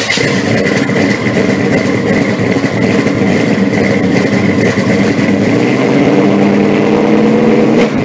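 Car engine running loud and steady, its pitch rising slightly near the end.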